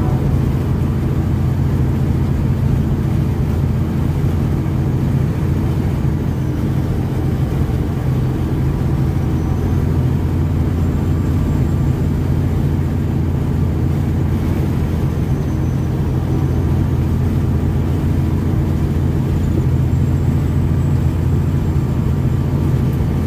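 Semi truck running steadily on the road: a constant low diesel engine drone with no change in pitch.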